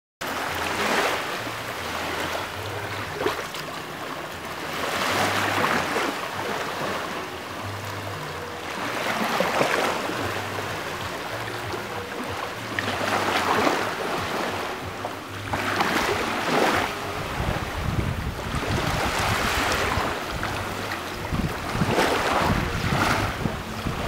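Small waves washing onto a beach, the surf swelling and fading every two to three seconds, cutting in suddenly at the start. From about two-thirds of the way through, wind rumbles on the microphone.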